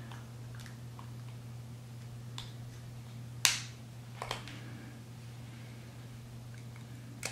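Plastic shell of a GM key fob clicking as a small screwdriver pries its two halves apart around the seam: a few faint ticks, one sharp snap about three and a half seconds in and a smaller one just after. A steady low hum runs underneath.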